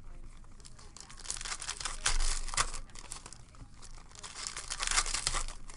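Foil wrappers of baseball card packs being torn open and crinkled by hand, in two bursts of crackling, one about a second and a half in and one near the end.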